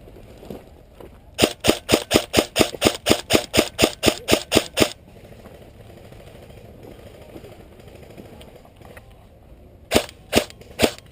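Airsoft gun fired in a rapid string of about fifteen sharp shots, evenly spaced at roughly four to five a second, then three more shots near the end.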